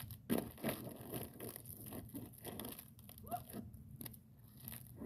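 Irregular crunching of ice-crusted snow and ice being stepped on and broken, a few crunches a second at an uneven pace, with a brief faint pitched sound about three seconds in.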